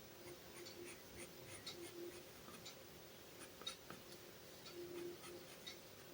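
Faint scratching of a drawing tool on paper in short, irregular strokes, as lines of a perspective box are drawn.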